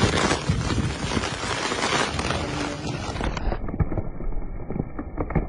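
Wind buffeting a phone microphone outdoors in the rain, a rough, uneven noise with a strong low rumble. About three seconds in it cuts abruptly to a duller, muffled version of the same noise.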